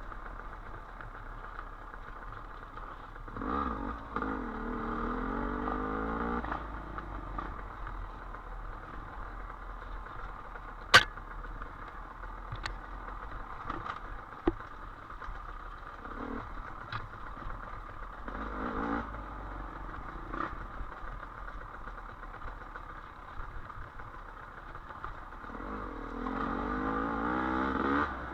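Dirt bike engine running on a trail ride, revving up in two stretches, about three seconds in and again near the end, with a few sharp knocks in between.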